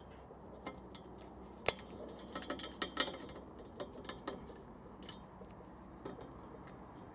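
Plastic cable ties being snipped with cutters and handled: a few sharp clicks and snaps, the loudest about one and a half seconds in, with a short cluster of smaller clicks about a second later.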